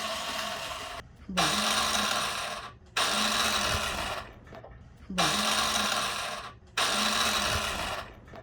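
Honda SCR100i scooter's electric starter motor whirring in five separate presses of a second or so each, with no sign of the engine turning over: its broken pinion gear is not engaging the engine.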